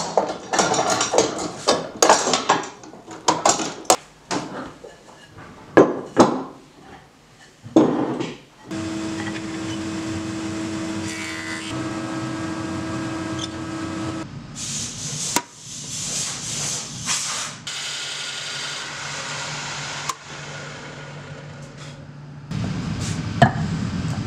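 Steel bar clamps clattering and knocking against wood as they are set and tightened on a glued-up panel, followed by a stationary woodworking machine running steadily, with a louder stretch in the middle.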